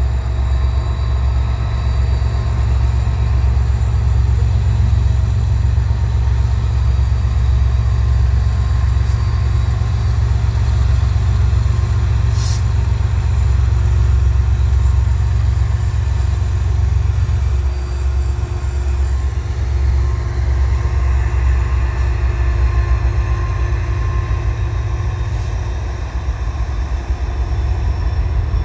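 Diesel locomotives of a Canadian Pacific freight train, led by an EMD SD70ACU, rumbling steadily as the train backs up slowly.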